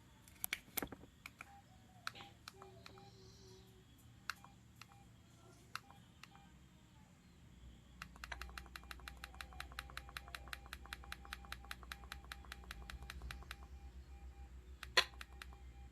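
Quiet clicks of a Samsung SGH-X497 mobile phone's keypad buttons being pressed: a few scattered presses, then a fast even run of about six clicks a second with faint short beeps, as the phone's menu is stepped through, and a sharper click near the end.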